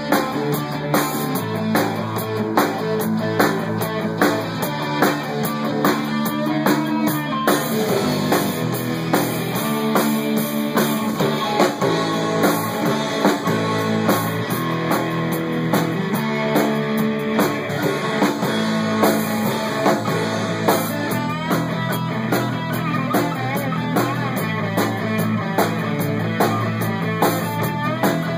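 Rock band playing an instrumental passage without vocals: electric guitars and bass guitar over a drum kit keeping a steady beat.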